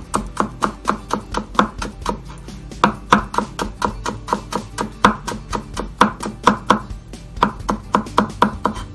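Kitchen knife slicing thin sheets of peeled ginger into fine needle strips on a wooden cutting board. It makes a quick, even run of crisp taps, about four a second, broken by a few short pauses.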